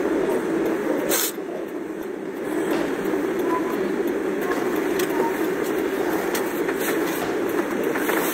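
Steady background noise without speech, with one sharp click about a second in.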